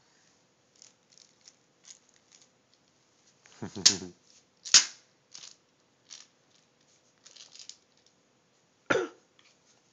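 Scattered light clicks and rustles of small plastic items being handled, with a toddler's short vocal sound about four seconds in, a sharp crack just after it, and another short loud sound near the end.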